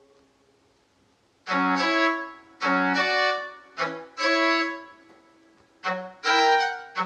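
Synclavier II digital synthesizer playing a violin-like bowed-string voice: after a near-silent pause, a melody of separate notes in short phrases begins about a second and a half in.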